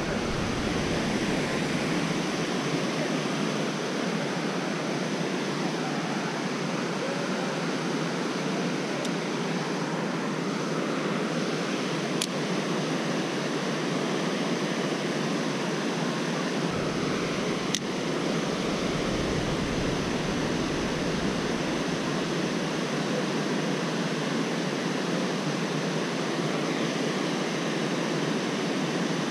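Steady rush of river water spilling over a low mill dam and running over rocks: a constant, even hiss.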